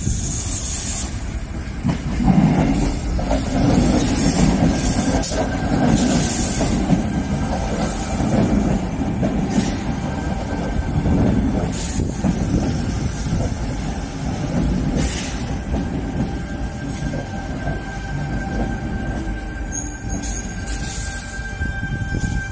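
Sydney Trains electric double-deck suburban trains moving along a station platform: a steady rumble of wheels on rail with repeated clicks and brief high-pitched wheel squeals. A steady high whine joins about two-thirds of the way in.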